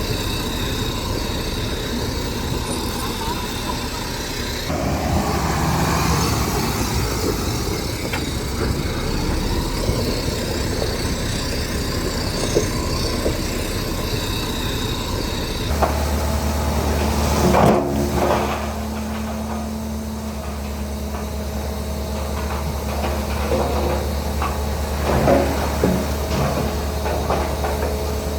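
Heavy diesel construction machinery running, with a few short clanks and knocks. The engine sound shifts abruptly twice, and after the second change a steady low hum runs underneath.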